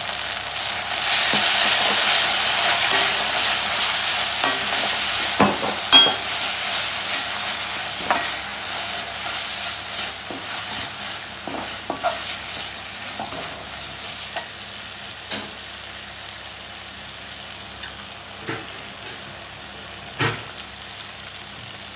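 Onions frying in a metal kadai, sizzling loudly just after tomato sauce is spooned in, then gradually quieter as it cooks down. A metal slotted spoon stirring clicks and scrapes against the pan now and then.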